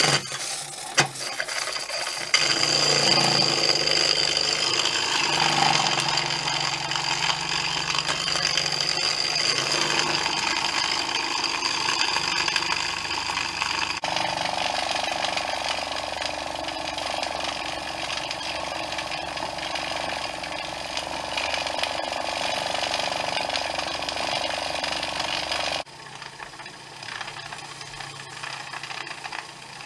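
Cheddar Models Pipit single-cylinder oscillating model steam engine running on steam, a fast, even rattling chuff of exhaust beats with steam hiss. It gets going and comes up to speed in the first couple of seconds, and becomes quieter near the end.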